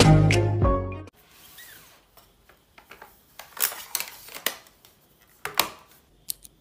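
Background music cuts off about a second in. After that come scattered light clicks and short scrapes of small objects being handled, a handful of them, the loudest in the middle and towards the end.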